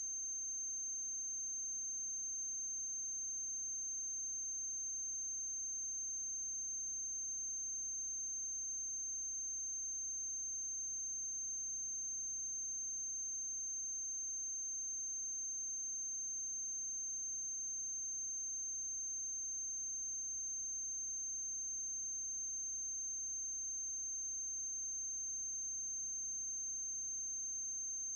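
Steady electrical hum with a constant high-pitched whine over faint hiss, unchanging throughout: background noise on the soundtrack of a silent film transfer.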